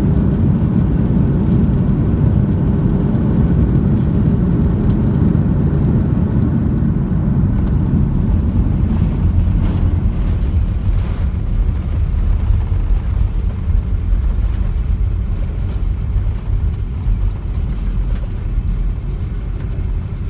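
Airbus A330-300 heard from the cabin during its landing rollout: a loud, steady rumble of engines and wheels on the runway as the airliner slows. The noise eases about halfway through, leaving a deeper rumble.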